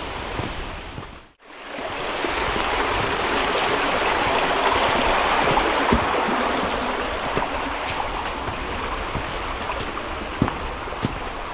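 Rushing stream water, a steady noise that swells for a few seconds and then eases a little. It cuts out almost completely for a moment about a second in.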